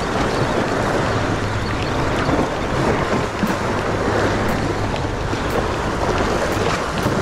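Wind buffeting the microphone over sea waves washing against shore rocks: a steady rushing noise.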